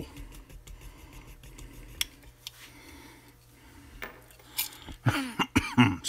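An X-Acto knife scoring the jacket of RG-213 coax cable: faint scraping with a few small clicks. About five seconds in, a man coughs several times, hard.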